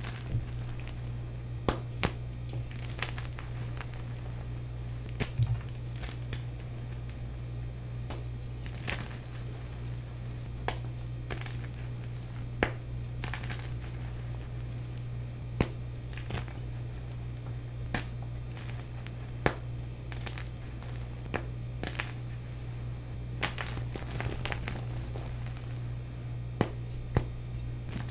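Blocks of plain white gym chalk being crushed and snapped by hand: irregular sharp cracks and crunches over a soft, powdery crumbling rustle, with a steady low hum underneath.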